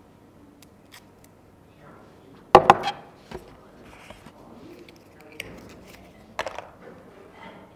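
Unboxing handling noise: a plastic phone charger and cardboard box parts knocked and set down on a table, with a few sharp clicks and knocks a third of the way in and another cluster late on, and soft rustling of packaging between them.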